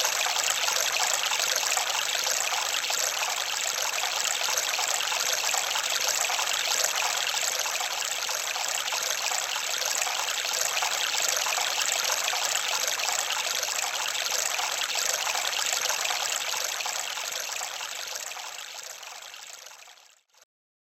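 Running water, a steady trickling stream, fading out near the end.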